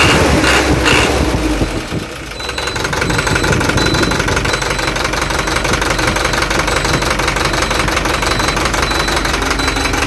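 Ashok Leyland bus diesel engine running, louder and faster for the first two seconds, then dipping and settling into a steady idle. A faint high beep repeats about once a second: the low air-pressure warning.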